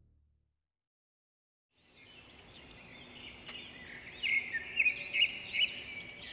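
Silence for about two seconds, then small birds chirping and twittering in quick, repeated calls that grow louder.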